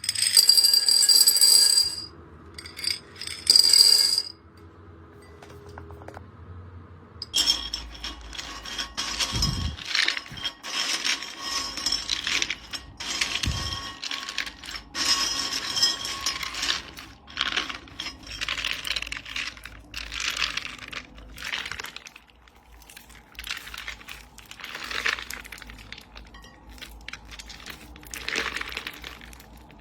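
Crunchy slime being handled. A few bright, ringing clinks come in the first seconds, then dense crackling and popping crunches follow from about seven seconds on.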